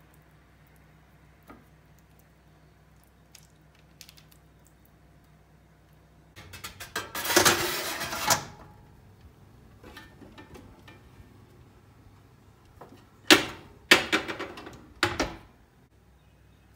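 A metal baking tray scraping loudly for about two seconds as it is slid into an oven's rack runners, then, near the end, three sharp metal clacks a second or so apart.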